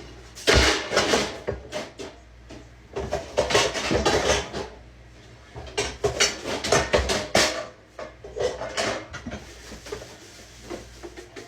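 Plastic food-storage containers clattering and knocking together as they are rummaged through in a kitchen cabinet, in four short spells of rattling.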